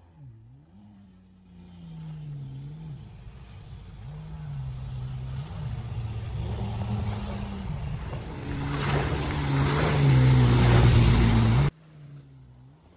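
Jet ski engine revving up and down as it runs across the water, its pitch rising and falling repeatedly. A rushing hiss of spray builds with it, getting louder until it cuts off suddenly near the end, leaving only a faint distant engine drone.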